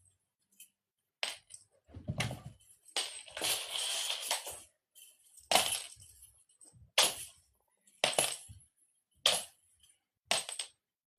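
A cat toy rattling and jingling in short, sharp bursts as it is batted and tossed about, with silent gaps of about a second between hits.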